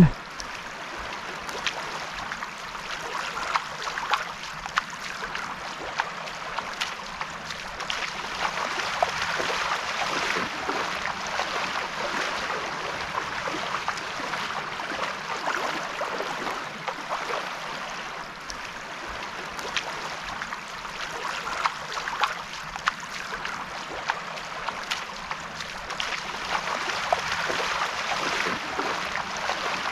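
Calm sea lapping gently at the shoreline, a steady wash with many small irregular splashes and trickles.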